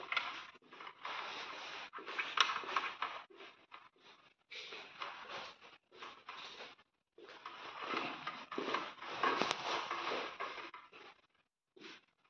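Irregular rustling and shuffling noise of a person walking with a handheld phone, coming in uneven spells with short quiet gaps.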